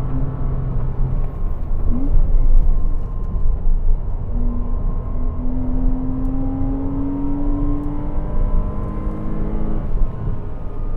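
Porsche Cayman 987's 2.7-litre flat-six engine running hard on track. Its note shifts pitch about two seconds in, then climbs steadily for several seconds as the car accelerates, before dropping off near the end as the driver lifts or changes gear.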